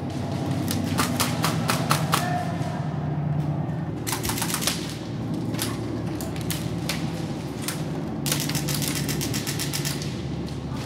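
Airsoft guns firing rapid strings of sharp shots in three bursts, the longest near the end, over a steady low hum.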